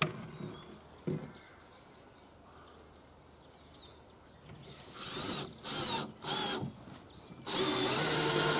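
Cordless drill-driver driving screws into a timber wall frame: a knock about a second in, then three short bursts of motor whine from about halfway through, and a longer steady run near the end.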